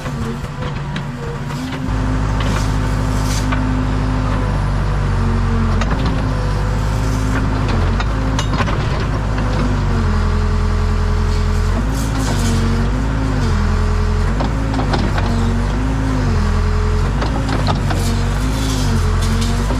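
Case 580 Super K backhoe loader's four-cylinder diesel engine running under working load. It gets louder about two seconds in. In the second half its pitch dips and recovers over and over, and there are a few knocks.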